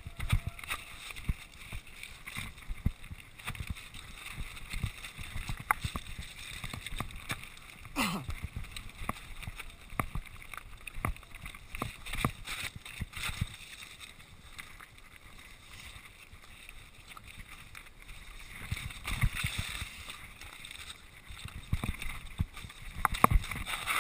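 Mountain bike riding over loose rocks and gravel: tyres crunching and the bike rattling and knocking continuously as it bounces down the rough track. A harder knock stands out about eight seconds in, and the rattling gets busier near the end.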